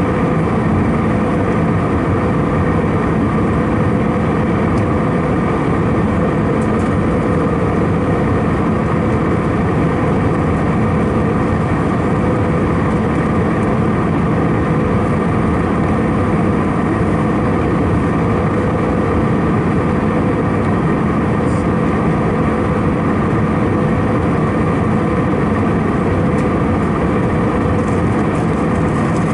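Steady cabin noise inside an Airbus A319-111 in flight: its CFM56 turbofan engines and the airflow make a constant roar with a low steady hum that neither rises nor falls.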